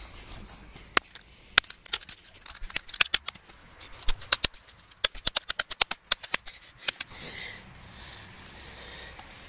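Hammer blows striking an old smartphone on a wooden tree stump: a string of sharp cracks that come faster between about five and six and a half seconds in and stop about seven seconds in. Softer rustling of the broken phone being handled follows.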